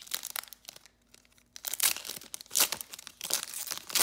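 Foil wrapper of a trading card pack being torn open and crinkled by hand. Soft rustling at first, a short pause about a second in, then louder tearing and crinkling.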